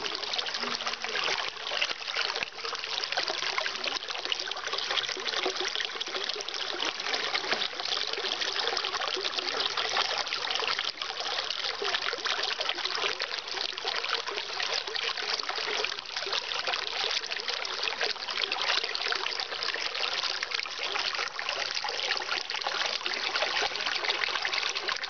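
Small mountain stream running over rocks: a steady trickling and splashing of flowing water.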